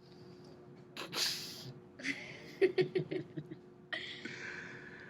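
Breathy vocal sounds from people in a small room: a sharp exhale about a second in, a quick run of short laugh-like pulses, then a long hissing breath near the end, over a faint steady electrical hum.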